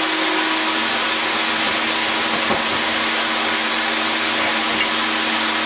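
Steam locomotive letting off steam: a loud, steady hiss, with a faint low hum of two steady tones beneath it.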